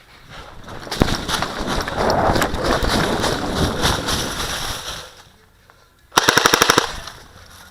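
Airsoft guns firing on full auto: a long, ragged stretch of rapid fire for about four seconds. After a short pause comes one quick burst of about a dozen shots.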